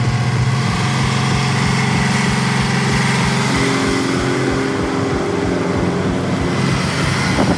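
Heavy haulage truck's diesel engine running with a steady low note and a regular throb.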